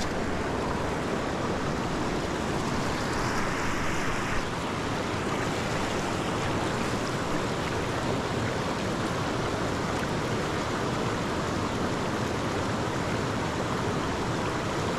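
Shallow river water rushing over rock ledges and small rapids, a steady wash that grows a little brighter for a moment about three to four seconds in.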